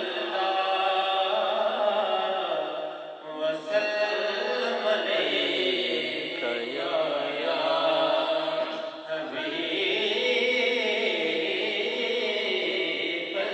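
A man's voice chanting durood (salutations on the Prophet) into a microphone in long, drawn-out melodic phrases, with short breaks for breath about three seconds in and again near nine seconds.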